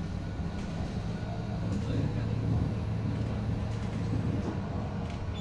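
Foton BJ5120 trolleybus running on the road, heard from inside the cabin: a steady low electric drive hum with road and body noise, growing a little stronger in the middle.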